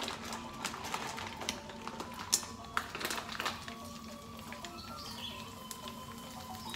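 Onion crackers (kerupuk bawang) frying in hot oil in a pan: scattered crackling pops, thickest in the first three seconds or so, over background music.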